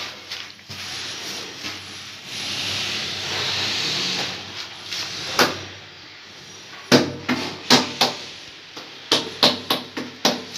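A series of sharp, irregular taps, about a dozen in the last few seconds, as a ceramic wall tile is tapped into its fresh mortar bed to set it.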